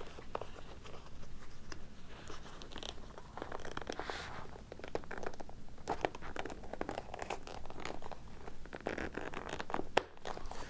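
Fabric rustling and crinkling as the collapsed Arovia SPUD pop-up display's screen fabric is folded and tucked into its black fabric cover, with scattered small handling clicks. A single sharp click sounds near the end.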